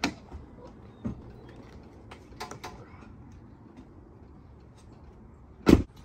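Door of a lifted Ford F450 pickup being worked: a few faint clicks and knocks, then one heavy door thud near the end.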